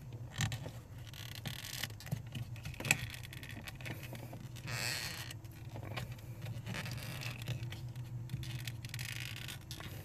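Rubber pedal cover being pried off a car's brake pedal by hand: scraping and creaking of rubber against the metal pedal, with scattered sharp clicks, over a steady low hum.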